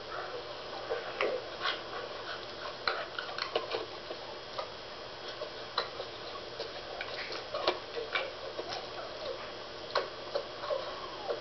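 Irregular sharp clicks and light clatter from a Staffordshire bull terrier and a red fox play-fighting.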